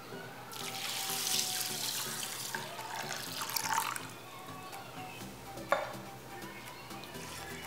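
Water poured from a glass measuring cup into a glass bowl of raw rice, splashing for about three and a half seconds, then stopping. A single sharp clink follows a couple of seconds later.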